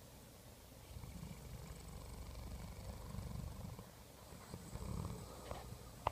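English Mastiff snoring in its sleep: a low rumble on each breath. One long snore starts about a second in, there is a short lull near four seconds, and then another snore follows.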